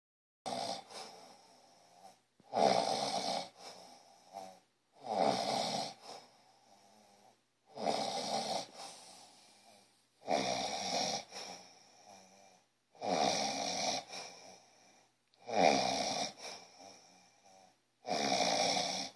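A man snoring while asleep: eight snores evenly spaced about two and a half seconds apart, each about a second long with a brief fainter tail.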